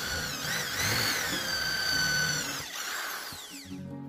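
Handheld electric drill boring through a small wooden insulating block. The motor's whine rises and dips under load, then winds down near the end as the trigger is released.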